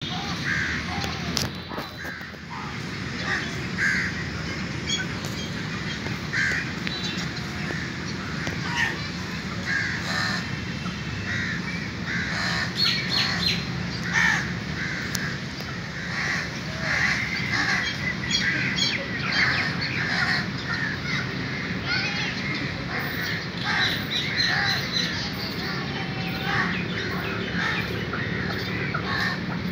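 Many birds calling at once, a dense run of short, repeated calls over a steady low background hum.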